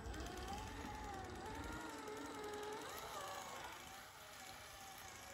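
Faint whine of an Axial SCX10 III 1/10-scale RC crawler's electric motor and gears, rising and falling in pitch as the throttle changes while it crawls over rough ground.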